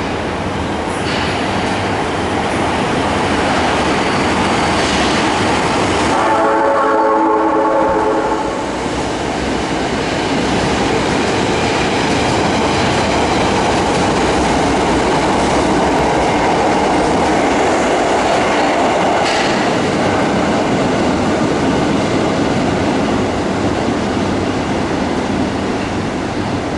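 Osaka subway Tanimachi Line train running through the station, a steady loud rumble of wheels on rail. About six seconds in, a horn sounds for roughly two seconds and cuts off.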